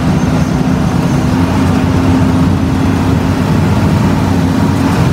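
Intercity bus engine and road noise heard inside the moving bus cabin: a steady, unchanging low drone at cruising speed.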